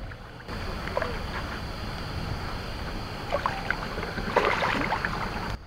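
Water splashing and sloshing as a hooked bighead carp (tongsan) is scooped into a landing net, over a steady hiss.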